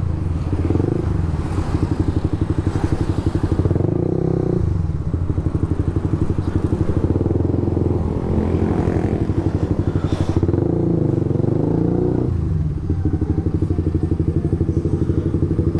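Suzuki GSX-S150's single-cylinder engine running through a SARP aftermarket exhaust with no dB killer fitted. The exhaust note is loud and fast-pulsing, and it changes with the throttle a couple of times while riding.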